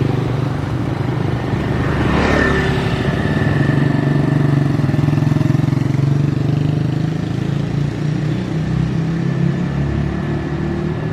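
Street traffic: motorcycles running past over a steady low engine drone, one passing close about two seconds in. A thin steady high tone joins shortly after.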